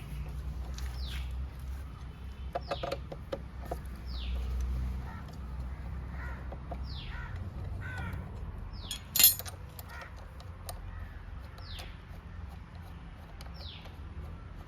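A bird calling again and again, short falling chirps about once a second. Several clicks come from a spanner working the front brake caliper bolts, with one sharp knock about nine seconds in, all over a steady low hum.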